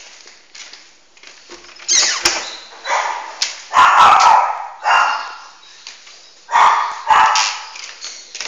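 Pomeranian barking: a run of barks starting about two seconds in, loudest in the middle, then two more barks near the end.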